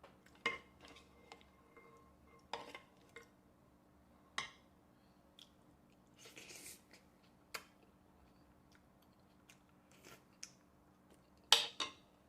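Eating utensils clinking and tapping against a bowl, a scattered handful of sharp clicks, a few of them ringing briefly. There is a short rustle about six seconds in, and the loudest clinks come as a pair near the end.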